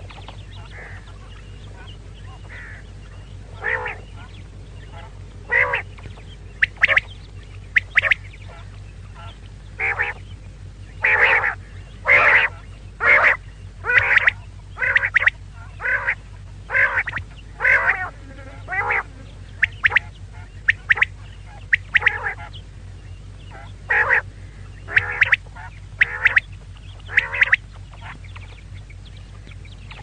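Female common quail calling: short repeated calls, about one a second and some in quick pairs, over a steady low hum.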